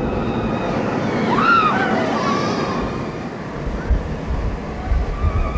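Steady rushing wind noise over the microphone on a moving roller coaster, with a short rising-and-falling voice about a second and a half in and a low rumble near the end.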